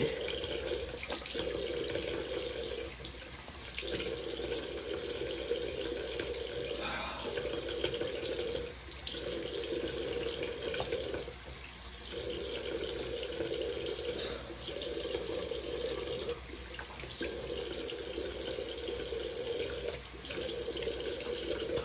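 Cold water running from a bathroom sink tap while hands cup it and splash the face. The stream's steady rushing breaks off briefly every two to three seconds.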